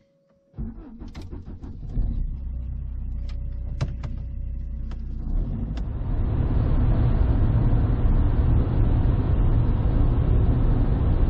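Inside an Opel car's cabin. Over the first five seconds the engine runs steadily, with several sharp clicks and a brief tone. It then gives way to louder, steady engine and road noise as the car drives along.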